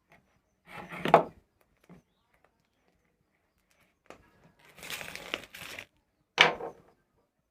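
Packaging being handled and opened, crinkling and rustling in three short bouts, with sharp peaks about a second in and near the end.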